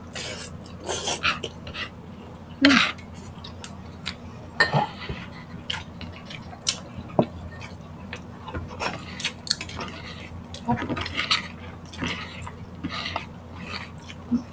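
Close-up eating sounds: wet chewing and mouth clicks, with irregular light clinks of a spoon and skewers against the table.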